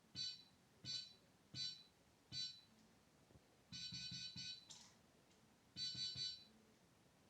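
Electronic beeper of a microcontroller timer bomb prop beeping: four short high beeps about 0.7 s apart, then a quick run of four beeps, a brief click, and another quick run of three beeps.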